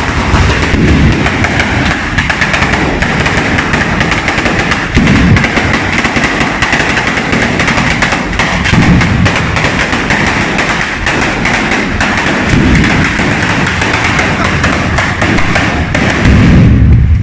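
A batteria, a long string of firecrackers laid along the street, going off in a fast, continuous crackle of bangs. Heavier bangs break through every few seconds, the loudest near the end.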